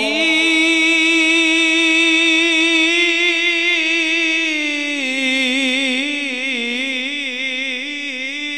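A male qari's melodic Quran recitation, a drawn-out held phrase of the basmala between "ar-Rahman" and "ar-Rahim". The voice holds one steady high note for about five seconds, then steps down and moves through wavering ornaments.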